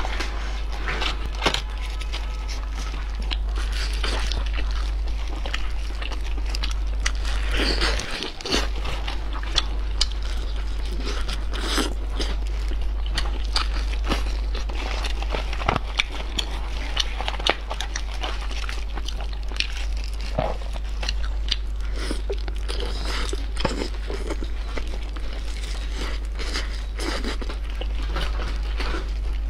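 Close-miked eating of a roast chicken: skin and meat tearing under gloved hands, aluminium foil crinkling, and biting and chewing, as a run of small crackles and clicks. A steady low hum runs underneath, briefly dropping out about 8 seconds in.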